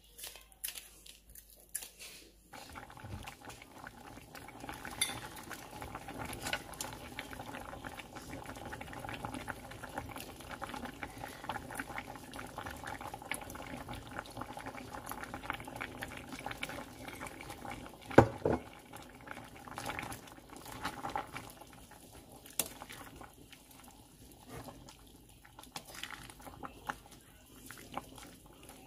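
Soup boiling in a stainless steel pot, a steady bubbling, while a wooden spoon stirs and clinks against the pot, with one loud knock a little past halfway. Kitchen scissors snip plant stems for the first couple of seconds.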